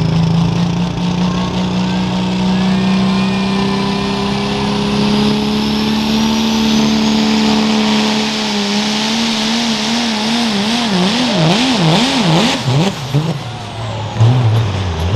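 Super stock diesel pickup truck pulling a weighted sled at full throttle, its engine pitch climbing steadily. About two-thirds of the way in, the engine speed swings rapidly up and down for several seconds, then falls away near the end as the pull ends.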